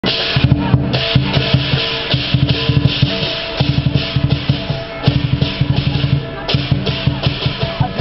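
Music led by fast, heavy drumming with cymbals, the drum hits coming in quick even runs.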